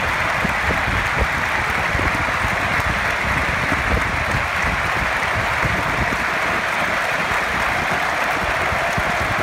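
A large football-stadium crowd applauding steadily in a sustained ovation.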